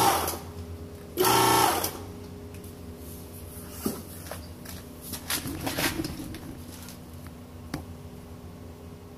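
Hydraulic press pump motor running in two short bursts of under a second each near the start, over a steady hum; then a few scattered clicks and knocks.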